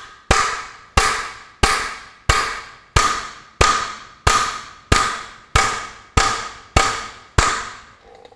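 Hammer blows on the steel top of a grey Ferguson tractor's front axle arm, driving the new kingpin down hard. About a dozen evenly spaced strikes, roughly one and a half a second, each with a short metallic ring, stopping near the end.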